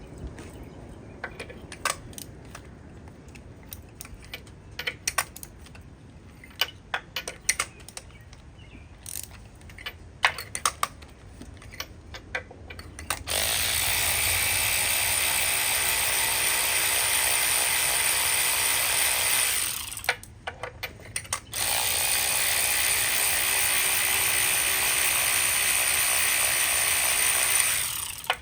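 Scattered ratchet clicks and tool knocks, then a power tool running steadily in two long runs with a short stop between, spinning the spark plugs out of the engine on a 5/8 spark plug socket and extension.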